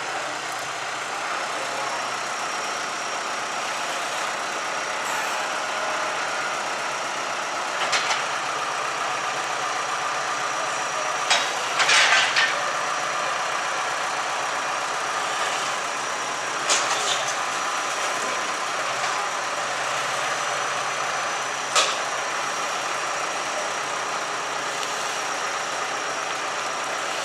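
Large outdoor bonfire burning with a steady roar, broken by a few loud sharp pops, the loudest a quick cluster about midway.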